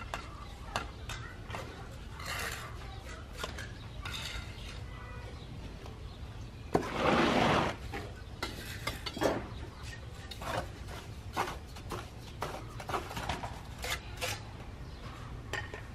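Scattered light clinks and scrapes, with one louder scraping rush lasting about a second, about seven seconds in.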